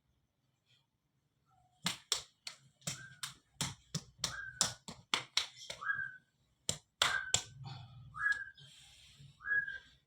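Open palms slapping a person's body in quick succession, about two to three sharp slaps a second for some five seconds: palm-beating massage given for a cough and chest tightness. Short rising whistled chirps sound between the slaps and after them.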